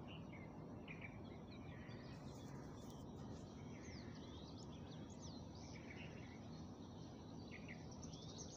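Faint steady background hiss with small birds chirping now and then, a flurry of short chirps in the middle.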